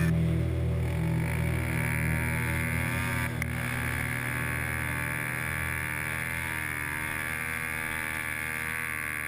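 Motorcycle engine running, its pitch drifting slowly up and down.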